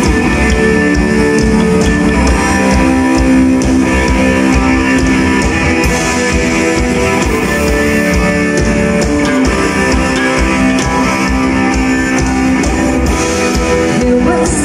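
Live band playing an instrumental passage, with electric guitars over a drum kit. The music is loud and steady, with no singing.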